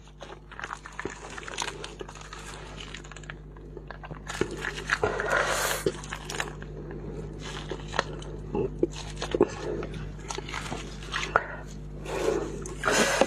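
Crinkling and rustling of plastic sauce sachets being handled, torn open and squeezed out, with scattered crackles and clicks. There are louder rustling bursts about five seconds in and again near the end.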